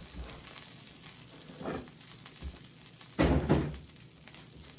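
Oil sizzling faintly as tacos fry in a pan, with a light knock about two seconds in and a louder clunk a little after three seconds.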